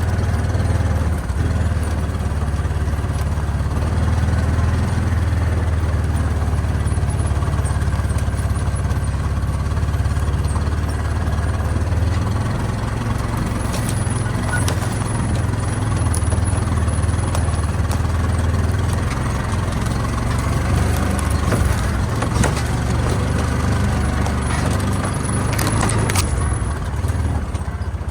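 A small engine running steadily for the whole stretch, holding a fairly even pitch, with a couple of brief knocks near the middle and near the end.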